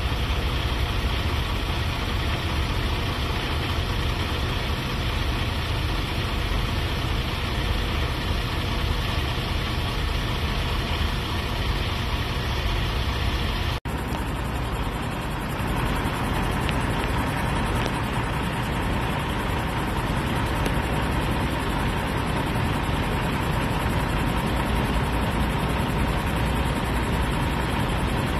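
A vehicle engine idling steadily, heard from inside the vehicle, with one sudden momentary break about halfway through.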